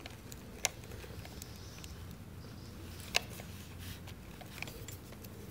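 A few small sharp clicks from a screwdriver working the bolt on a motorcycle battery's negative terminal as it is tightened, with light handling noise between them. The clearest clicks come under a second in and about three seconds in.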